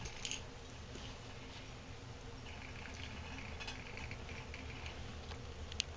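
A dog and a pet groundhog play-wrestling on carpet: faint scuffling, rustling and small clicks of fur, paws and mouths, with one sharp tick near the end.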